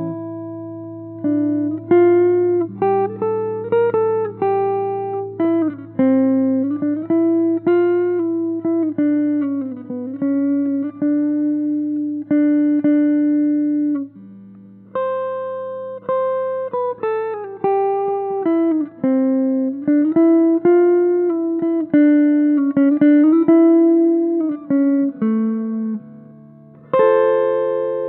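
Background guitar music: a picked melody, with notes that slide and bend in pitch, over a held low bass note.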